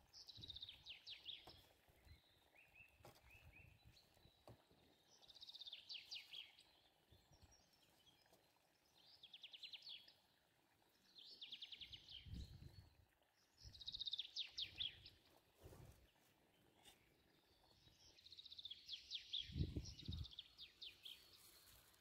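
A songbird singing short, rapid trilled phrases, each about a second long, repeated every two to four seconds. There are a few brief low rumbles in between.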